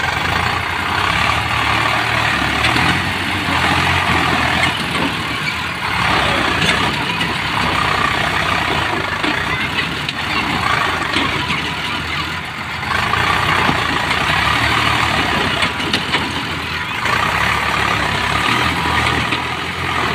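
Tractor diesel engines running hard under load while pulling a loaded trolley out of mud. The engine noise surges and eases about four times.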